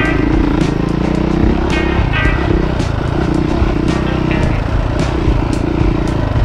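Dirt bike engine running under way on a rocky trail, its pitch rising and falling with the throttle, with frequent sharp clicks and clatter from the bike over the stones.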